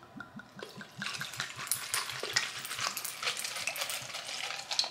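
Liquid poured from a bottle over crushed ice in a plastic blender cup, splashing and trickling with many small crackling clicks from the ice. The pour starts about a second in.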